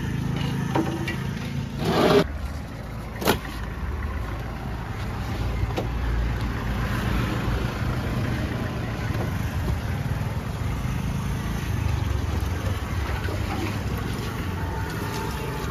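Steady low rumble of road traffic, with one heavy thump about two seconds in as the large stingray is turned over onto the wooden table, and a sharp knock about a second later.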